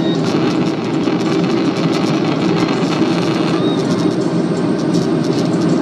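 Steady cabin noise of a Boeing 737-800 in flight, the engines and rushing airflow heard from inside the passenger cabin.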